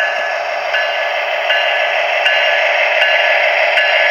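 Model freight train running past on sectional track: a steady whir of the locomotive's motor and the wheels on the rails, with a short click repeating about every three quarters of a second.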